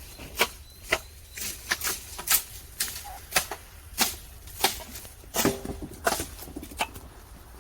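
A run of sharp clicks, about two a second and unevenly spaced, like a hand tool snipping or striking. There is a brief pitched squeak about five and a half seconds in.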